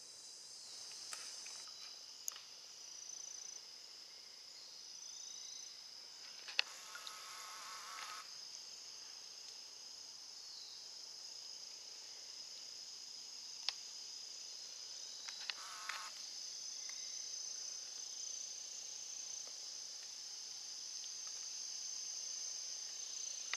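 Steady high-pitched chorus of insects trilling continuously. A brief rushing noise comes twice, around seven and sixteen seconds in, with a few sharp clicks.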